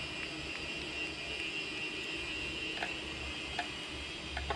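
Steady background hum of room noise, with a few faint small metallic clicks in the second half as a screwdriver and tiny screws are handled, a small cluster of them near the end.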